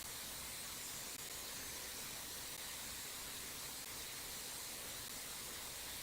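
Steady hiss of a small mountain stream running past, even and unbroken.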